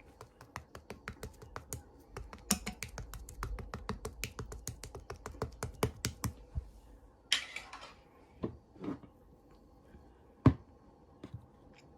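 Slime being pressed and worked by hand, giving rapid sharp clicks and pops, about five a second, for the first six seconds. Then a brief squishy rustle and a few scattered clicks, the loudest about ten and a half seconds in.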